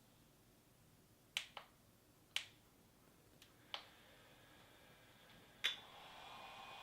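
A DJI Inspire 2 drone being powered up: a series of sharp clicks, then near the end a steady whir with a faint high whine starts up and keeps running as the drone comes on.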